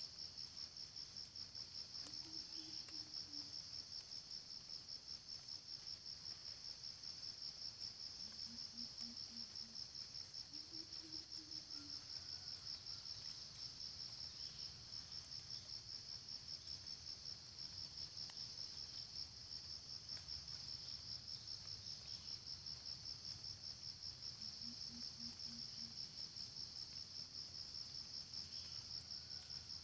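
Insect chorus: a steady, high, rapidly pulsing buzz throughout. Faint low clucks from a red junglefowl come in short runs four times.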